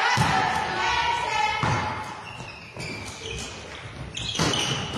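Volleyball struck by hand during a rally in a sports hall: a serve near the start, then a few more sharp hits a second or two apart, with players' voices calling.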